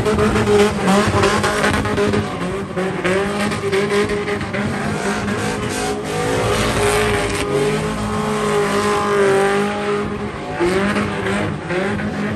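Car engine held at high revs, wavering up and down a little, with tires squealing as the car spins its wheels.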